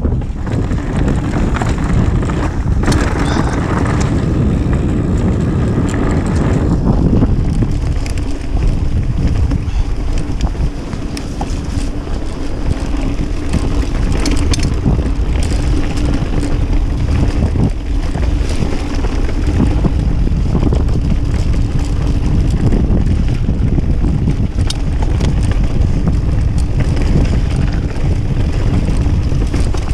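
Kona Process 153 mountain bike riding down a rough dirt and stone trail: tyres crunching over the ground with frequent clicks and rattles from the bike, under loud wind rumble on the action camera's microphone.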